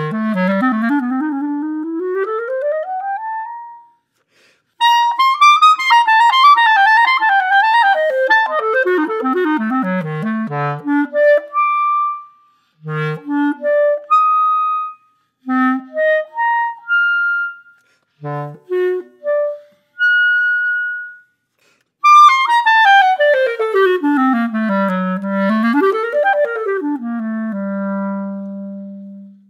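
Solo clarinet fitted with a Carbec barrel, played unaccompanied. It opens with a smooth upward glide from a low note, goes on to fast falling runs, then short separated notes with pauses between them, and ends with another run settling on a long held low note.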